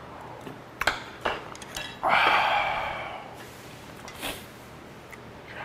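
Spoon and chopsticks clinking against a small ceramic bowl and dishes in a few sharp clicks, with a louder, second-long mouth sound of eating the stew about two seconds in.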